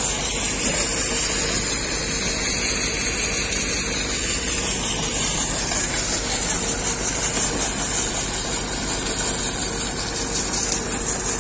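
Canal-lining concrete paving machine running steadily, a continuous mechanical drone with a high hiss over it.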